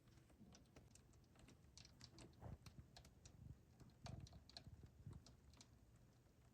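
Faint, irregular clicks and taps.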